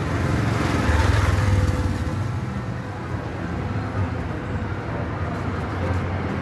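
Street traffic: motor vehicle engines running with a steady low rumble, swelling louder about a second in as a vehicle passes close, then settling back.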